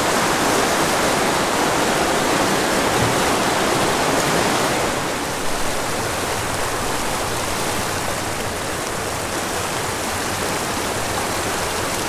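Shallow mountain creek running over rocks and cobbles, a steady rushing. For the first five seconds or so it is louder and fuller inside a concrete culvert, then a little quieter in the open creek bed.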